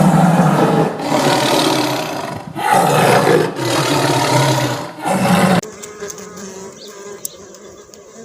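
A large animal roaring: five harsh, deep roars in quick succession, which break off abruptly about five and a half seconds in.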